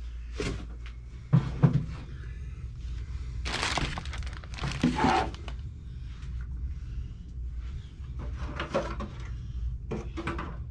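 Crinkling of a plastic packaging bag and clatter of parts being handled, with several sharp knocks and clicks; the loudest crinkle comes about three and a half seconds in. A steady low hum runs underneath.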